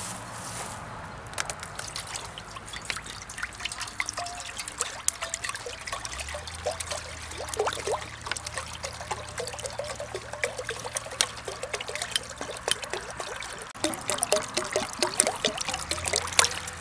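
Water trickling and bubbling, with many small plops and clicks that grow thickest near the end.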